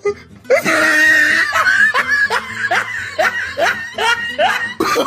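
A person laughing: a loud breathy outburst about half a second in, then a run of short "ha-ha" pulses, about three a second.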